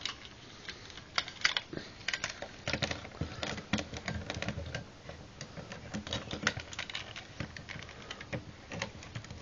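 Irregular light clicks and clatter of a Binaltech Tracks transforming figure, part die-cast metal and part plastic, as it is handled and its parts and feet knock on a wooden tabletop.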